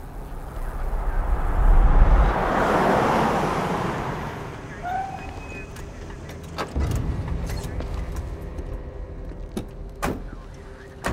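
A car drives up, its engine and tyre noise swelling to a loud peak about two seconds in and then fading as it comes to a stop. Sharp clunks follow over the last few seconds, fitting car doors opening and shutting.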